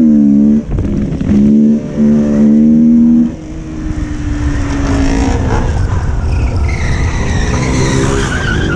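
Motorcycle engine revving: held high in several bursts with short breaks over the first few seconds, then running lower and rougher with rising high-pitched whines later on.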